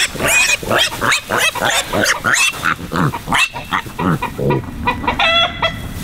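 Kunekune piglets giving a rapid run of short grunts and high squeals as they are pulled out of a wire crate, with one longer squeal a little after five seconds.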